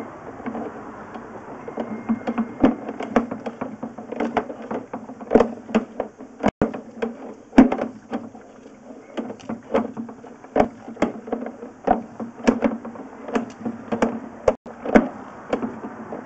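Irregular clicking and knocking, several sharp clicks a second, over a low steady hum, as a sewer inspection camera's push cable is fed down the drain line.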